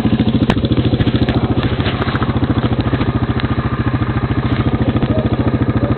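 An engine idling steadily, with a fast even pulse.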